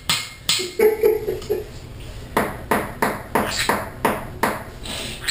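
Green-cheeked conure tapping its beak against a hard surface: a run of sharp taps, a few scattered at first, then steady at about three a second from about two seconds in.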